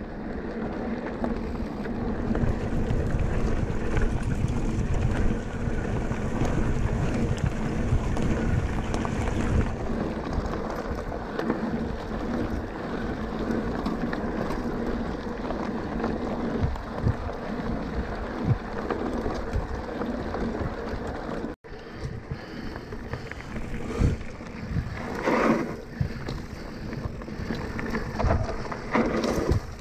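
Wind rushing over an action camera's microphone on a moving electric mountain bike, with a steady low hum under it. The sound drops out for an instant about two-thirds through, and a few short louder scrapes or knocks come near the end.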